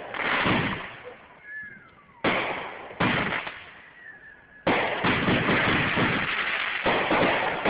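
Fireworks going off: a few sharp bangs, each trailing off, with a faint whistle gliding in the gaps. From about five seconds in comes a dense, continuous barrage of bangs and crackling.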